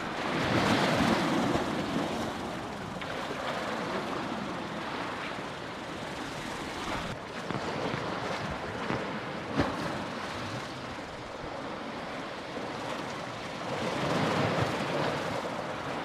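Choppy sea waves washing and splashing around stairs that run into the water, with wind on the microphone. The wash swells about a second in and again near the end.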